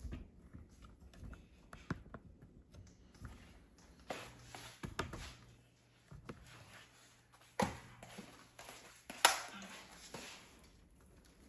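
Scattered light knocks and clicks of small objects being handled and set down on a kitchen counter, with two sharper knocks in the second half, the louder one about nine seconds in.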